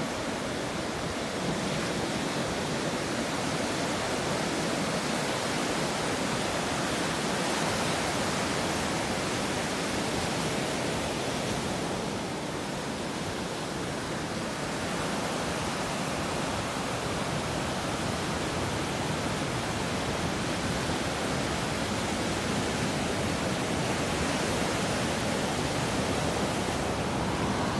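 Small ocean waves breaking and washing up a sandy beach: a steady rushing hiss that swells and eases a little, dipping slightly about halfway through.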